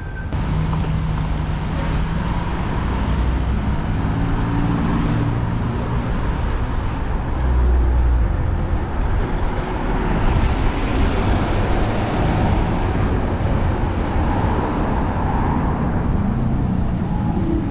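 Road traffic beside a moving bicycle: motor vehicles running and going past, with a steady rush of tyre and road noise that swells as they pass.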